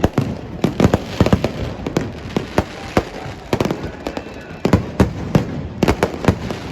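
Fireworks and firecrackers going off in rapid, irregular succession: many sharp cracks and bangs, several a second, overlapping one another.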